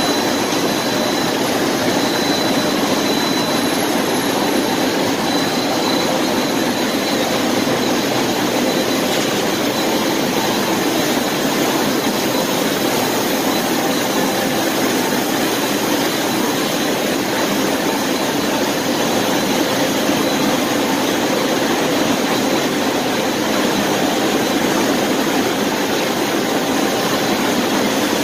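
Tifmak Zeus 148 web-fed industrial machine running at speed, its rollers and moving web giving a loud, steady, even mechanical rush with a faint high whine.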